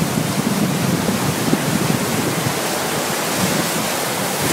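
Steady rushing noise of wind and sea water, with no clear individual events.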